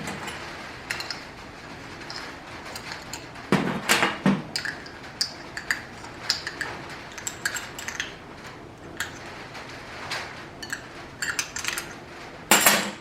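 Small metal parts being handled: irregular clicks, clinks and knocks as an air fitting and the air tool are picked up and fitted, with a louder rasp near the end.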